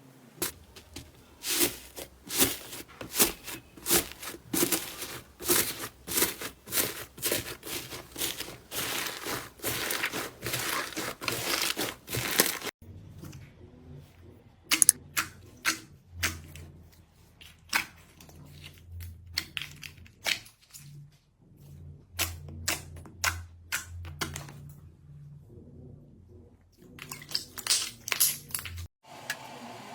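Hands squeezing and pressing crunchy slime, giving a run of sharp crackles and pops. The crackles come thick and fast at first, then after a change about thirteen seconds in they turn into sparser pops over a low hum.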